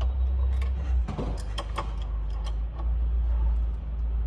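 Scattered light clicks and knocks of a metal articulated tool-balancer flex arm and the rivnut tool it carries being moved and set by hand, over a steady low hum.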